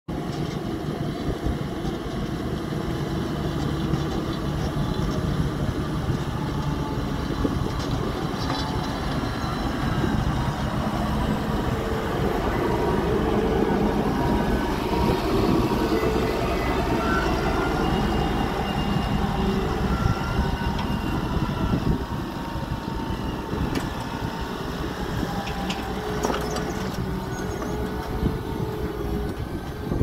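Fendt 724 Vario tractor's six-cylinder diesel engine working steadily under load, pulling a Kverneland five-furrow reversible plough through the soil; loudest as it passes close midway. A few short metallic knocks come near the end as the plough is raised and turned over.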